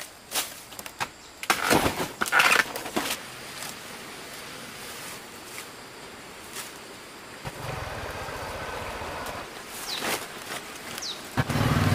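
Scattered knocks and handling clatter, then a small engine starts running loudly just before the end.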